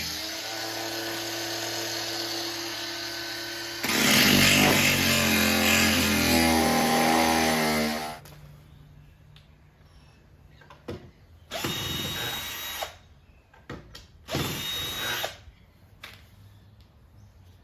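Handheld power tool running under load as it cuts into an old boat transom. The motor's pitch wavers, it runs in two long stretches and stops about eight seconds in, then two short bursts of the tool follow later.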